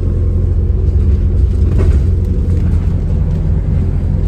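A bus engine running with a steady, loud low rumble.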